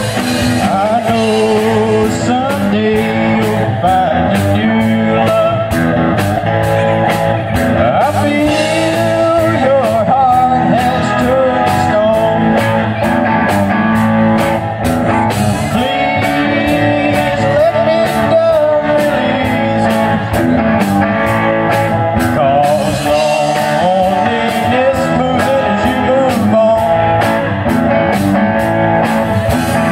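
Live band playing with electric guitars and a drum kit, heard loud and steady throughout.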